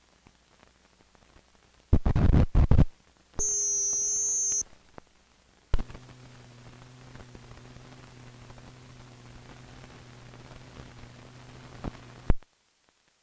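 Tail-of-reel noise on an old film's soundtrack. About two seconds in there is a loud crackling burst, then a steady beep tone lasting about a second. From about six seconds a low steady hum with hiss runs for about six seconds and then cuts off suddenly.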